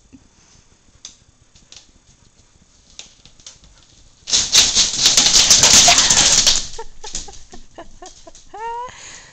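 A Siberian husky makes a loud rustling, scrabbling noise for about two seconds, then a few soft taps, then a short whine near the end.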